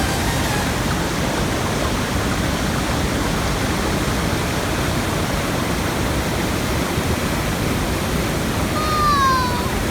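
Waterfall pouring, a steady, loud rush of water. Near the end a short falling tone sounds over it.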